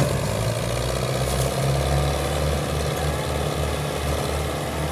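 Belarus tractors' diesel engines working hard under heavy load, pulling a loaded sugarcane trolley, blowing black smoke: a loud, steady low rumble.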